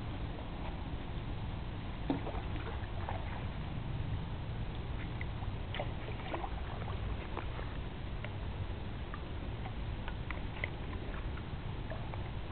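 Canoe being paddled with a wooden paddle: scattered light splashes, drips and small knocks against the water and hull, over a steady low rumble.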